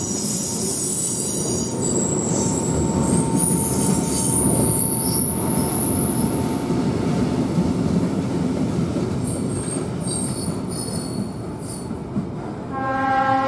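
Freight train of covered Shimms steel-coil wagons rolling past, with wheels rumbling on the rails and high-pitched wheel squeal, which comes again in short bursts as the last wagons pull away. Near the end a steady horn tone starts.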